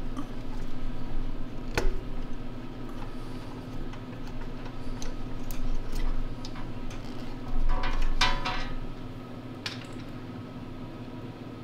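Small clicks and taps of fingers and metal parts as the primer hose is worked off a snowblower's Tecumseh carburetor by hand, with a short cluster of rattling clicks about eight seconds in. A steady low hum runs underneath.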